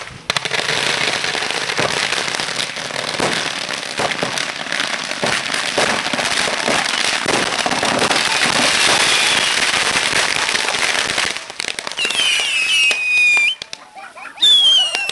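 A trash can full of fireworks and firecrackers going off all at once: a dense, continuous crackle of rapid bangs for about eleven seconds. Near the end come a few shrill whistles that fall in pitch.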